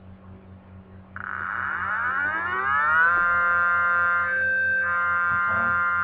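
Synthetic SD-10 siren imitation built in Audacity from layered, pitch-shifted copies of a generated tone, playing back. It starts about a second in, winds up rising in pitch for about two seconds, then holds a steady chord of several tones over a low steady hum.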